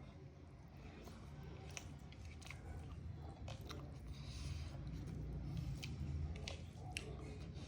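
Close-miked chewing of a mouthful of food, with a low rumble from the jaw and a few short, sharp mouth clicks.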